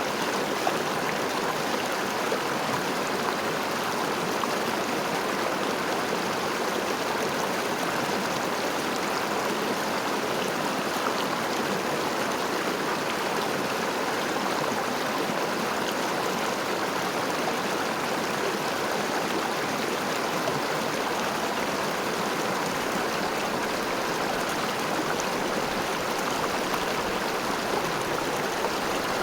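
River water rushing and babbling steadily, an even, unchanging flow.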